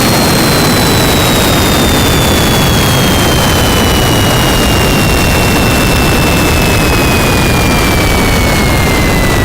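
Jet engine running with a loud, steady roar and a high whine that slowly falls in pitch throughout.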